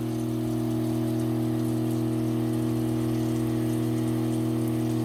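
Rock saw motor running with a steady, unchanging hum.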